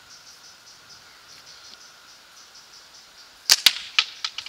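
A catapult shot with a 7mm steel ball: two sharp cracks close together about three and a half seconds in, the release of the bands and microfiber pouch and the ball hitting the catch box. A few lighter clicks follow within the next second.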